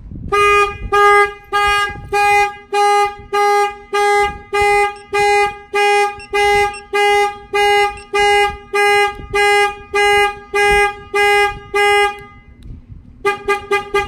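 Clifford vehicle alarm set off by a knock on the window, sounding a steady single-pitched tone that pulses on and off about twice a second. It stops about twelve seconds in, and a few short chirps follow near the end.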